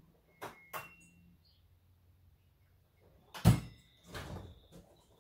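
Knocks and handling noises: two light clicks under a second in, then a loud thump about three and a half seconds in, followed by a short rustle.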